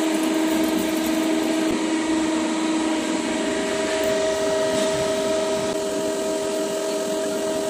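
Surface grinding machine running steadily, giving a constant hum with a steady tone.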